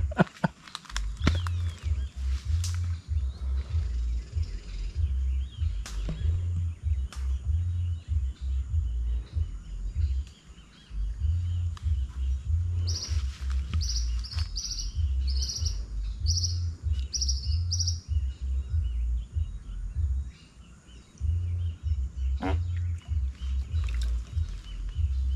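An uneven low rumble with brief dropouts. Midway a bird gives a quick series of short high chirps for about five seconds, and there are a few scattered clicks.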